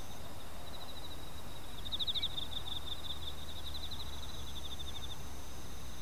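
Insects trilling, cricket-like: a steady high trill with louder bursts of rapid chirps about two seconds in and again at the end, over a faint low hum.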